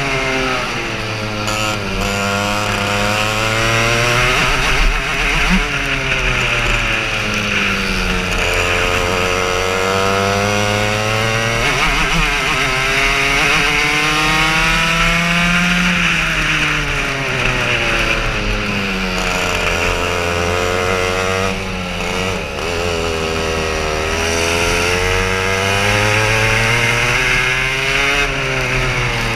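Racing kart's engine, heard close from the kart itself, revving hard: the pitch climbs along each straight and drops as the driver lifts for a corner, about six times.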